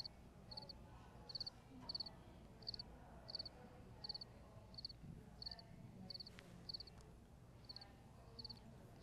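Faint cricket chirping, a short high trill repeated about every two-thirds of a second: the stock 'crickets' sound effect that marks an awkward silence after a joke falls flat.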